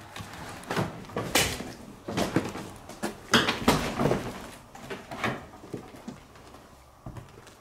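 Footsteps on an old staircase: a string of uneven thumps and creaks that thin out near the end.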